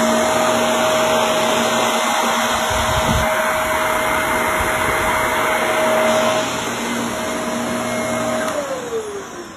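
Shark Navigator upright vacuum cleaner running steadily with a loud motor whine, then switched off near the end, its motor winding down in falling pitch.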